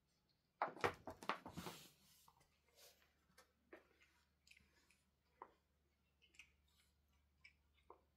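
A cat chewing on matatabi (silver vine) fruit. A short flurry of crackly crunching and rustling comes about half a second in, followed by scattered soft clicks of chewing.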